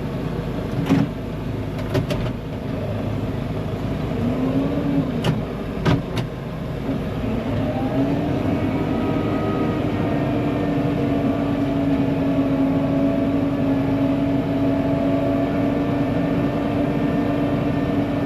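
Engine running under load as the vehicle drives across soft ground; its pitch climbs about seven seconds in and then holds steady. A few sharp knocks in the first six seconds.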